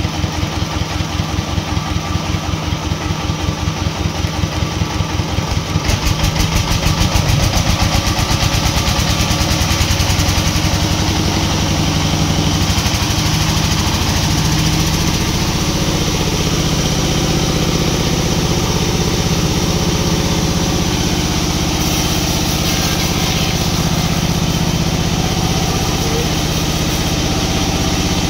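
An engine running with a pulsing chug, speeding up about six seconds in and settling into a steady run from about ten seconds.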